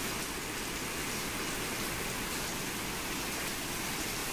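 Rainwater leaking through a station roof, streaming and splashing onto the tiled platform floor with a steady, even hiss of heavy rain.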